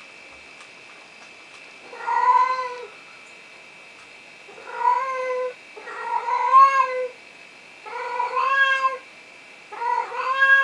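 Sphynx cat meowing insistently, five long drawn-out meows about a second apart, the first coming about two seconds in and the last still going at the end. The cat is calling to be let into a room.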